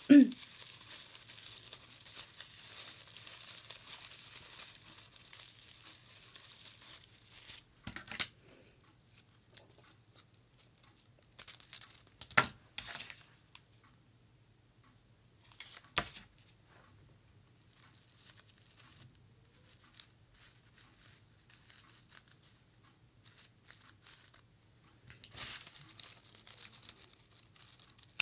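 Dry preserved flowers crackling and crinkling as they are broken apart and handled by hand, for several seconds at the start and again near the end. In between it is mostly quiet, with a few single sharp clicks.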